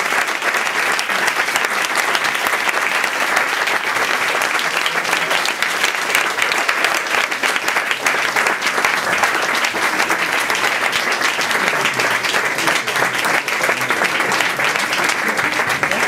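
Audience applauding: steady, dense clapping from a full club crowd.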